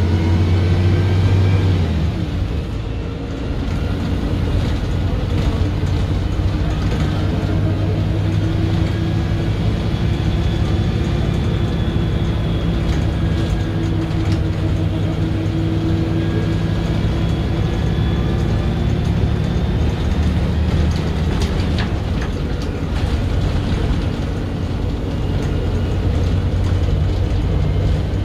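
Onboard sound of a MAN 18.240LF single-deck bus under way: its six-cylinder diesel engine runs steadily and the note rises and falls slowly with speed. The note dips a couple of seconds in. Body panels and fittings add light rattles and knocks.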